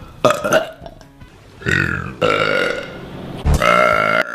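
A person burping loudly several times: a short burp just after the start, a longer one in the middle, and a long burp held at a steady pitch near the end.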